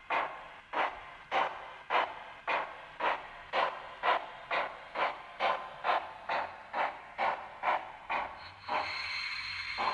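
Sound decoder of a Liliput model ÖBB class 52 steam locomotive playing steam-engine exhaust chuffs, which quicken from about one and a half to over two a second as the locomotive speeds up. Near the end the chuffing gives way to a steady steam hiss with a high tone.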